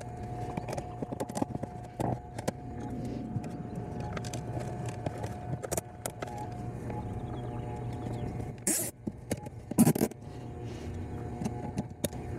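Septic aerator air pump running with a steady low hum. Over it come small clicks and scrapes of hands working at the pump, and two short rasping zips near the end as cable ties are pulled tight around it.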